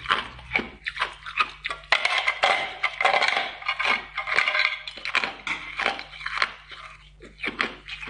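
Thin sheets of ice being bitten and chewed: a quick series of sharp crunches and cracks, densest between about two and five seconds in.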